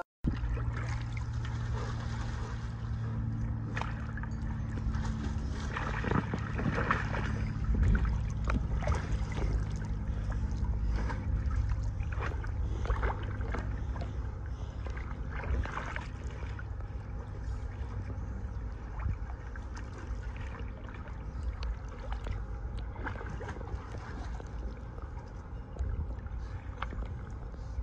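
Pool water lapping and splashing, with short splashes scattered throughout over a steady low rumble.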